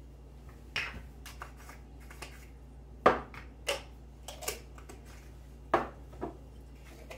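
A handful of light, sharp clicks and knocks from things being handled in a kitchen, spread unevenly, with the loudest about three seconds in and another just before six seconds, over a faint steady low hum.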